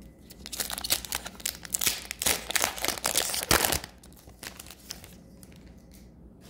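A hockey card pack's wrapper being torn open and crinkled by hand. The crinkling runs for about three seconds, loudest near its end, then dies down to faint handling of the cards.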